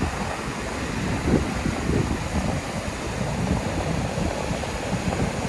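Small waves of Atlantic surf washing in over a sandy beach, with wind buffeting the microphone in irregular low rumbles.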